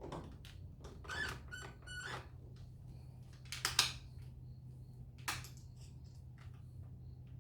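Clicks, knocks and a brief squeak from hands working on patio door lock hardware and its screws, with the loudest clatter a little past the middle and a sharp click near the end, over a steady low hum.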